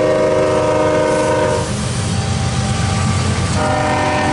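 Multi-chime air horn of a CSX diesel freight locomotive sounding a long blast that cuts off about a second and a half in, then a second short blast near the end, over the steady low rumble of the locomotives' diesel engines and wheels passing close by.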